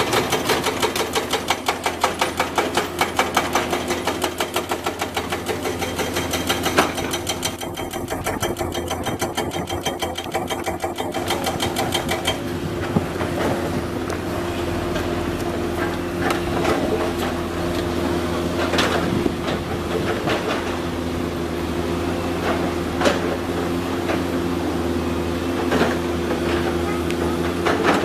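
Komatsu PC200 excavator running, its diesel engine and hydraulics giving a fast rhythmic clatter that stops about twelve seconds in. After that a steady engine drone with a few sharp knocks.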